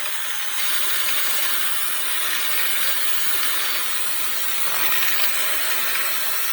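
Drill spinning a conical bit against the end of a steel coach screw clamped in a vice, grinding the tip to a point: a steady, unbroken metal-grinding noise.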